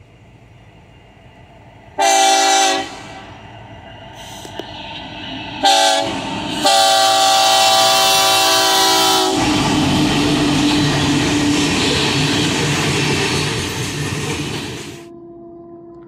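Union Pacific diesel freight locomotive sounding its multi-note air horn for a grade crossing: a short blast about two seconds in, another brief one, then a long blast. The locomotive and its loaded hopper cars then rumble past with wheel clatter. After a sudden cut near the end, a fainter steady horn from a distant approaching train.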